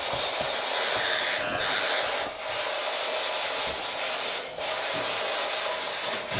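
Spirit box (ghost box) scanning radio static: a steady hiss broken by a few brief dropouts.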